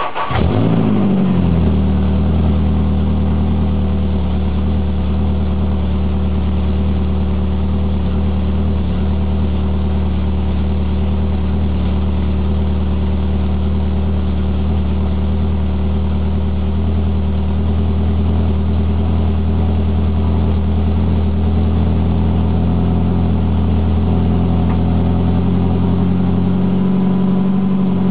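Peugeot 205 GTI four-cylinder engine running through a decatted exhaust (catalytic converter removed) with an IRESA silencer, just after a start: the revs drop over the first second or two, then it settles into a steady idle.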